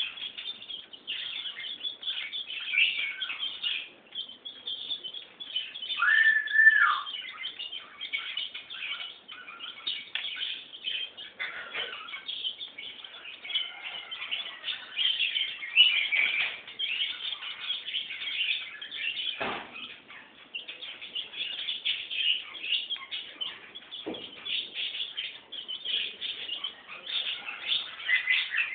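A brood of chicken chicks peeping nonstop in a dense, high-pitched chatter, with one longer call about six seconds in. Two brief knocks come later.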